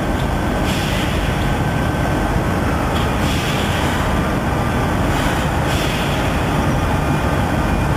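Steady mechanical rumble and hiss of factory machinery, even throughout with small shifts every few seconds.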